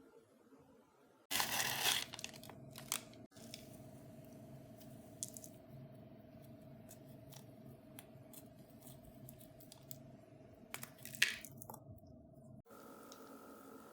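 Bubble slime being squished and played with, crackling and popping as the trapped air bubbles burst. A loud crackly stretch comes about a second in, followed by scattered sharp pops and clicks.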